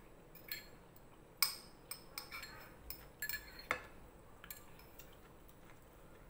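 A metal spoon clinks and scrapes against a ceramic bowl as food is scooped from it. The clinks come irregularly, about a dozen of them, and the sharpest is about a second and a half in.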